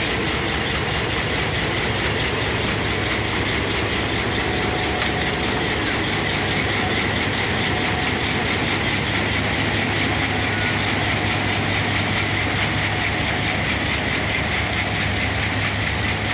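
Two Pakistan Railways HBU-20 diesel-electric locomotives passing slowly at close range, their engines running with a steady low hum while the wheels roll over the rails.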